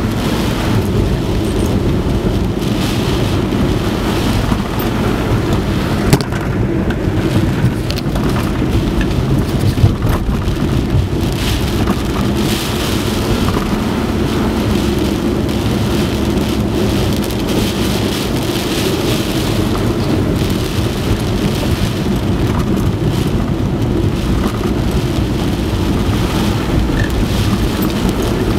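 Heavy typhoon rain and wind, a loud steady rushing with a deep rumble, with a couple of sharp knocks about 6 and 10 seconds in.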